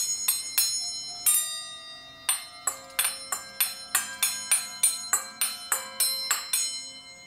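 A hanging stack of metal bowl bells struck repeatedly with brass-headed strikers: a few separate strikes, then a quick run of about three a second from about two seconds in. The bells' several bright ringing tones overlap and sustain after the strikes stop near the end. The strikers are newly made brass singing-bowl hammers being tried out.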